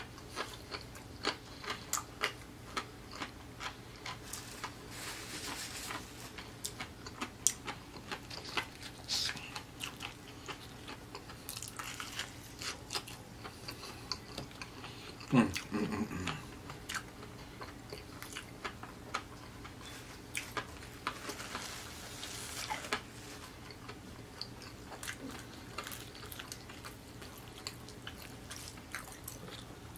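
Close-miked chewing and lip-smacking of fried chicken, with many short wet mouth clicks and some crunching. About halfway through comes a short low vocal sound that falls in pitch.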